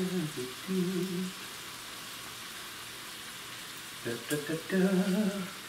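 Ribeye steak frying in butter and olive oil in a stovetop pan, a steady sizzle. A man's voice sounds briefly over it at the start and again about four seconds in.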